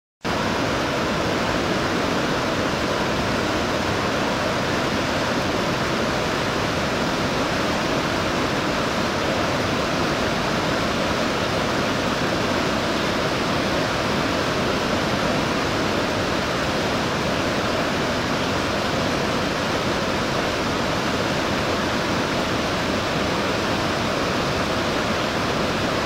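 Waterfall in heavy flow, white water plunging through a narrow rock gorge: a loud, steady, even rush of falling water.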